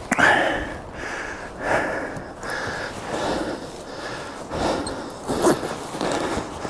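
Heavy canvas of a Kodiak Canvas Flex-Bow tent rustling as its door is handled, in a series of short, irregular bursts.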